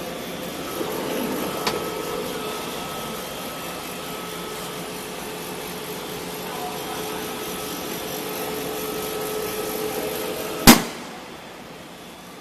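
Hydraulic staple forming machine running with a steady hum carrying a couple of held tones and a few faint ticks. A single sharp bang comes near the end, after which the running sound is quieter.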